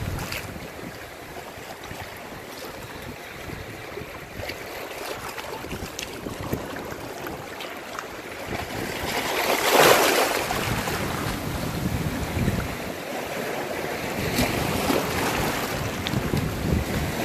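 Sea surf washing and breaking against shoreline rocks, with one louder wave surge about ten seconds in, and wind buffeting the microphone.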